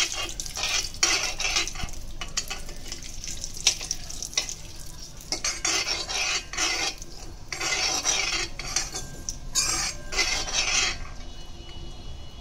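Cumin seeds frying in hot oil in a kadai, stirred with a spatula: a sizzle with repeated scraping strokes against the pan and occasional clicks.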